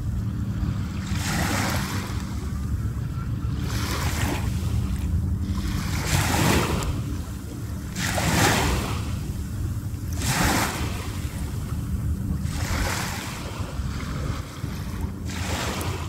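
Small waves breaking and washing up a sandy shore, a hiss that swells and fades about every two seconds, over a steady low rumble.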